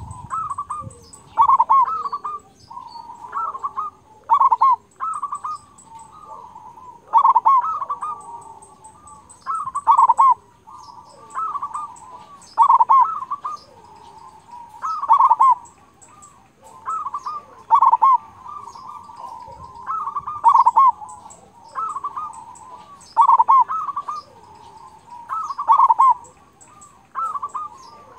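Male zebra dove (perkutut) singing its cooing song, a quick run of rolling notes with the deep, full 'kung' voice prized by fanciers. The phrase repeats steadily about every two and a half seconds.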